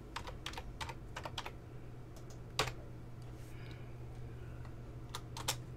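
Typing on a computer keyboard: a quick run of keystrokes in the first second and a half, a louder single key about two and a half seconds in, and two more near the end, over a low steady hum.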